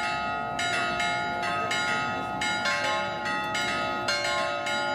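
Greek Orthodox church bells ringing rapidly, several bells of different pitch struck about two to three times a second, their tones ringing on between strikes. The tolling calls the congregation together for the Easter service.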